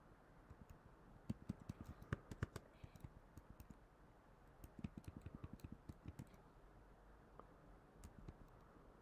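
Computer keyboard being typed: faint quick runs of key clicks, three runs with pauses between them, the last one short near the end.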